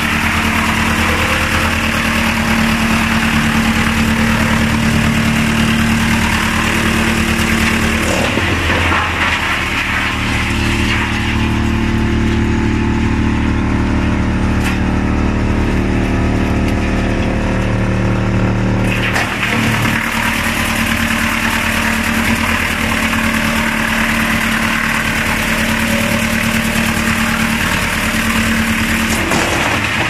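YMPJ 218 drum wood chipper running and chipping a log: a steady machine hum under a loud grinding, crunching chipping noise. The chipping noise drops away for several seconds in the middle, leaving the hum, then comes back.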